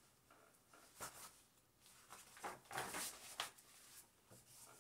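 Faint rustling and handling of a picture book's paper pages as they are turned, a few soft crinkles and taps about a second in and again later on.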